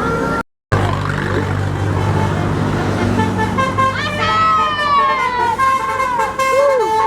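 Tour bus with its engine running, then from about four seconds in its telolet musical horn sounding a string of swooping, falling tones. A brief dropout about half a second in.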